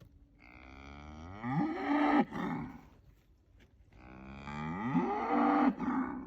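A cow mooing twice: two long, loud calls, each rising in pitch and then holding before cutting off.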